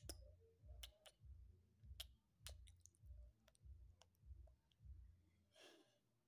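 Faint low purring from a sleeping tabby cat, pulsing about one and a half times a second and stopping near the end as the cat wakes, with scattered faint clicks and a brief rustle.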